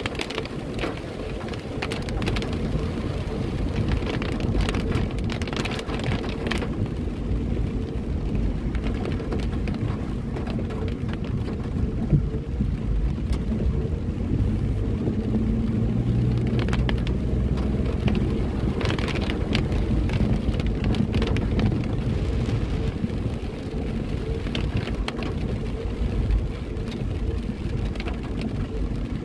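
Heard from inside a car driving on wet roads in rain: a steady low rumble of tyres and engine, with scattered ticks of rain striking the windshield. A faint engine hum rises for a few seconds about halfway through.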